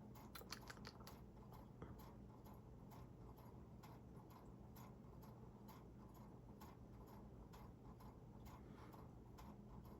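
Near silence: faint, fairly regular ticking clicks over a low, steady hum.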